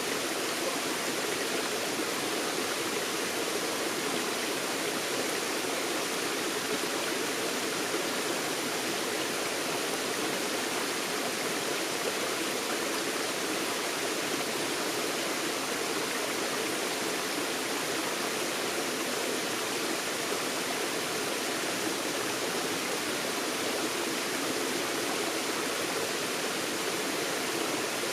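Forest stream running over rocks: a steady, even rush and burble of flowing water.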